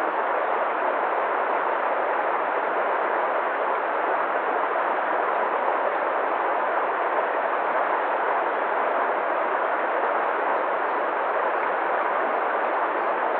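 A waterfall's steady rush of falling water, even and unbroken throughout.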